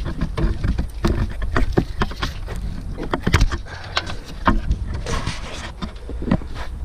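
Irregular knocks and clatter, many sharp strikes at uneven spacing, over a steady low rumble.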